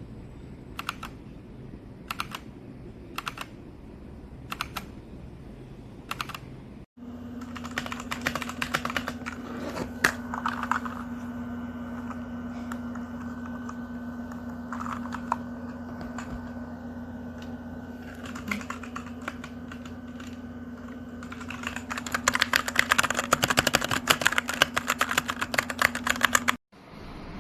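Keystrokes on a Machenike K500 B61 60% mechanical keyboard. First single key presses spaced well apart, then, after a cut about seven seconds in, bursts of typing over a steady low hum, turning into fast continuous typing near the end.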